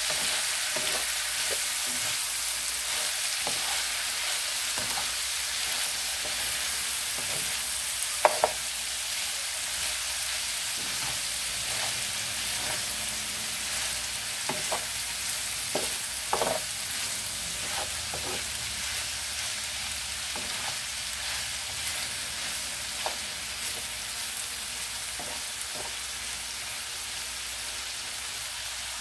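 Chorizo with diced potatoes, onion, tomato and chile sizzling steadily in a frying pan. A slotted spatula stirs it, scraping and knocking against the pan now and then, loudest about eight seconds in and around sixteen seconds in.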